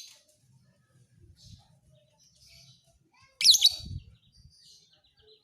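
Lovebird song: soft scattered chirps, then one loud burst of rapid, shrill sweeping trills about three and a half seconds in, lasting about half a second.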